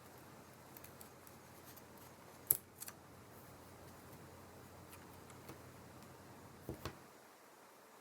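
A few light, sharp clicks and taps of small repair tools and phone parts being handled, a pair about two and a half seconds in and another pair near the end, over a faint low hum that stops about seven seconds in.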